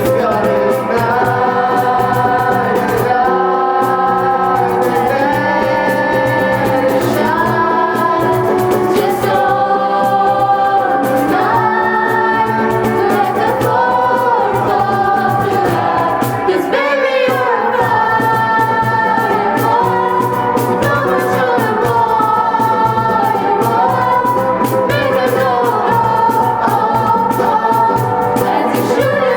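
A choir of student voices singing a song in held, stepping notes over instrumental accompaniment.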